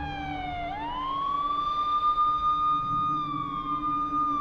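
Police siren wailing: a slowly falling tone sweeps quickly back up about a second in, holds high, then falls slowly again near the end.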